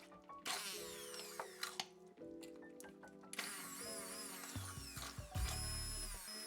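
Background music with a steady chord pattern, over which come repeated sharp clicks and a ratcheting mechanical sound, with a low rumble from about halfway in.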